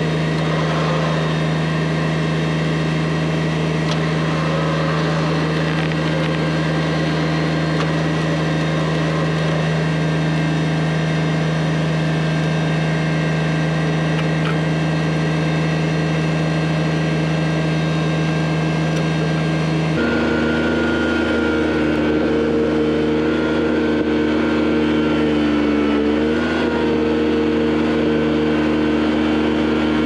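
Tractor engine running at a steady speed, powering a rear-mounted log winch. About two-thirds of the way through, the engine note changes abruptly, and a few seconds later it dips briefly in pitch once.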